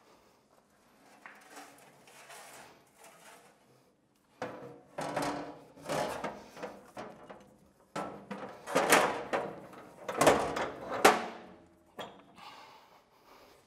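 Heavy steel lathe chucks and tooling shifted around in a metal tool-cabinet drawer. It is faint at first. About four seconds in there comes a run of clattering and scraping with several sharp metal clanks, loudest a little before the end.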